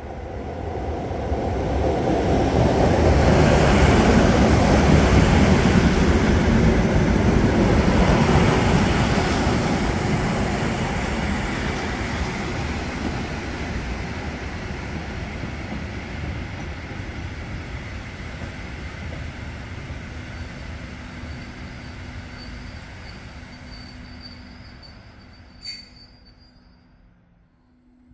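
Rumble and wheel noise of trains at a station, loudest a few seconds in and fading slowly as a Polregio electric multiple unit pulls in to the platform. Near the end there is a steady low hum and a brief high squeal.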